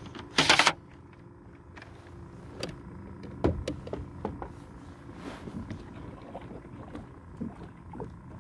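Handling noise aboard a kayak: scattered knocks and clatters as gear is moved about, with a short, loud rush of noise about half a second in.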